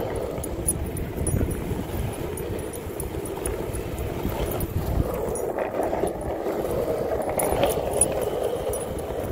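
Steady rolling noise of wheels on asphalt, with small light metallic jingles from a dog's collar tag.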